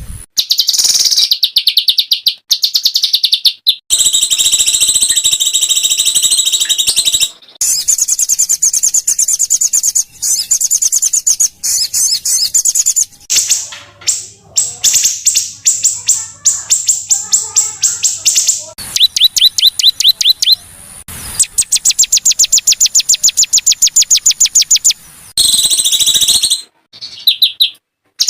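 Small songbirds singing harsh, rapid-fire trills: long strings of very fast, high-pitched repeated notes, with looser separate chirps around the middle. The phrases stop and start abruptly, as in an edited birdsong training track.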